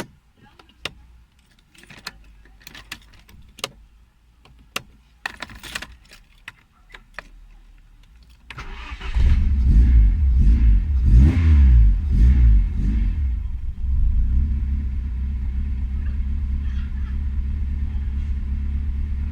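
A few sharp clicks and knocks, then about eight and a half seconds in the Honda D15Z4 1.5-litre four-cylinder engine starts. It revs up and down a few times, then settles into a steady idle. The engine has a stored idle control valve fault (code 14) that the mechanic traces to the valve's wiring.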